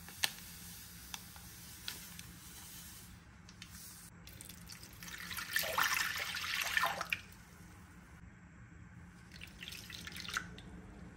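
Water poured from a glass jug into a wooden bowl, splashing for about two seconds in the middle. A few small clicks come near the start, and a faint pattering of salt sprinkled into the wet bowl comes near the end.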